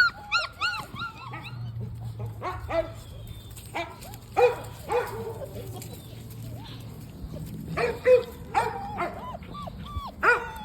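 Five-week-old German Shepherd puppies whining and yelping: short, high-pitched, rising-and-falling cries in quick clusters, a rapid run at the start, more scattered ones after, and another burst near the end. A low steady hum sits underneath.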